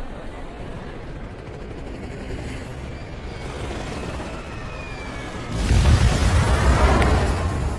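A falling helicopter's whine dropping in pitch, then about five and a half seconds in a sudden loud explosion and rumble as it crashes into a building, tailing off near the end.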